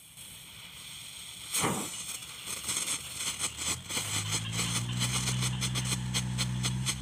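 A small firework goes off with a sudden whoosh, then burns with rapid crackling. A steady low hum joins about four seconds in.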